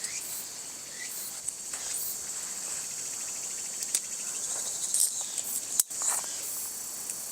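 A steady, high-pitched chorus of insects buzzing in summer woodland, with a few light clicks of handling nearby.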